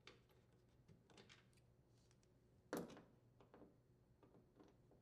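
Faint clicks of a screwdriver backing out the bolts that hold a front-load washer's door hinge to the front panel, with one louder knock about three seconds in.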